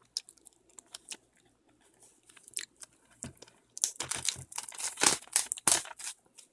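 Packaging of a DVD gift set being opened by hand: scattered light clicks and handling noises, then a louder run of crinkling and tearing starting a little past halfway.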